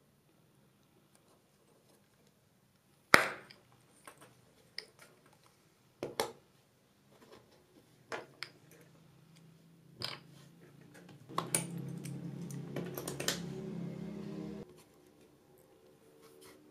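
Clicks and clinks of a steel watch, its bracelet and small tools being handled and set down on a bench mat. There are four sharp knocks a few seconds apart, the first the loudest, then a steady low hum with more small clicks for about three seconds before it stops.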